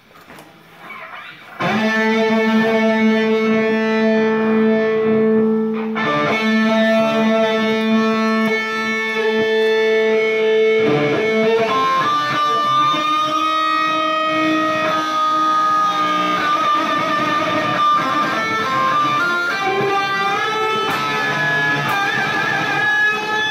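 Electric guitar played through an amplifier: about a second and a half in, long notes ring out and are held for several seconds each, then a higher lead melody with vibrato.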